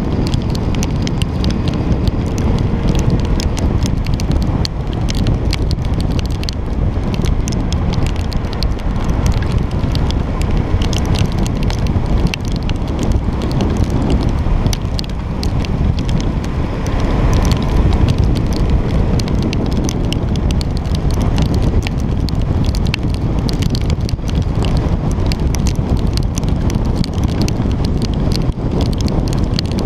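Steady wind buffeting on the camera microphone from riding at speed in rain, with a dense crackle of raindrops striking the camera.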